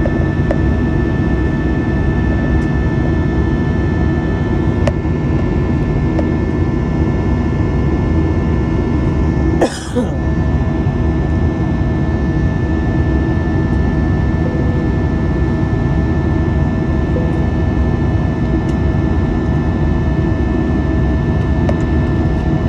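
Airplane cabin noise in flight: a steady, loud rush of engines and airflow with several fixed humming tones. About ten seconds in, a short sharp noise briefly cuts across it.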